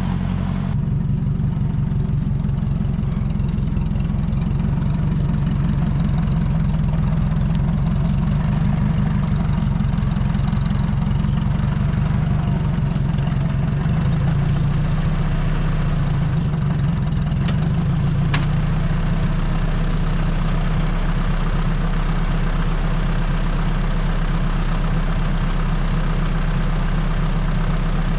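1959 Ford 641 tractor's four-cylinder engine running steadily, its note shifting for a few seconds about halfway through. A single sharp click is heard partway through.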